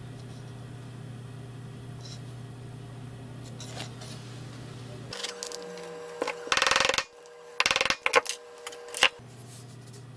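Small metal parts of a dismantled U-matic video head clinking and rattling as they are handled. Over a steady low hum, a loud rattle comes about six and a half seconds in, followed by several sharp clicks.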